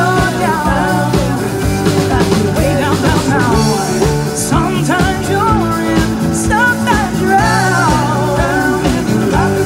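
Live rock band playing: electric guitars, keyboards, bass and drum kit, with a lead melody bending up and down in pitch over a steady chord.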